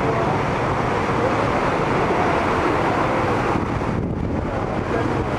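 Cars and a pickup truck driving slowly through floodwater on a road: a steady rush of tyres ploughing and swishing through the water under running engines. Wind rumbles on the microphone.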